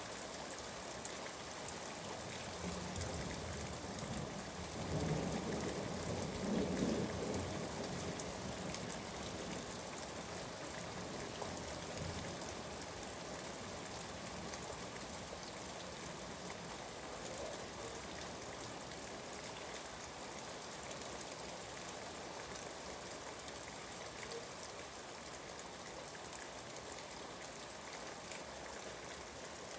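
Steady heavy rain falling, with a low roll of thunder rumbling in about three seconds in, loudest around five to seven seconds in, then fading away.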